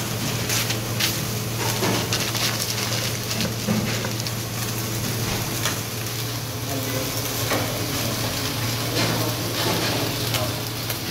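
Kitchen noise at a döner grill: a steady low hum and hiss with food sizzling, broken by scattered clicks and clatter of metal utensils and pans.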